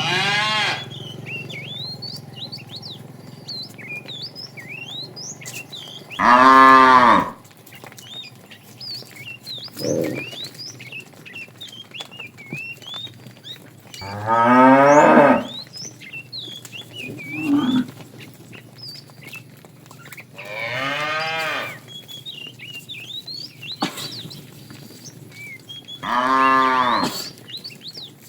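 Cows mooing: four long, loud moos spaced about six to seven seconds apart, each rising and then falling in pitch, with two shorter, fainter calls in between.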